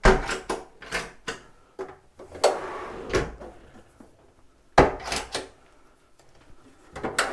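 Wooden cabinet doors being opened and handled, with a string of knocks and clicks from the doors and their catches and a longer scraping sound about two and a half seconds in.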